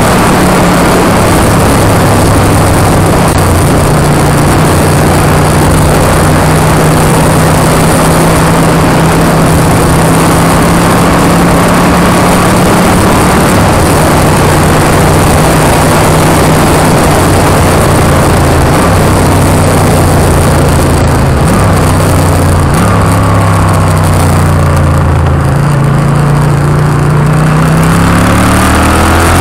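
Motorcycle engine running at a steady cruise under heavy wind rush on the microphone. About three quarters of the way through the engine note drops as the bike slows, then climbs again as it accelerates near the end.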